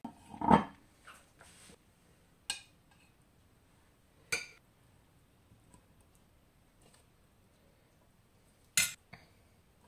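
A ceramic dinner plate set down on a stone countertop with a clunk about half a second in, then several sharp clinks of metal serving tongs against the plate as food is laid on it.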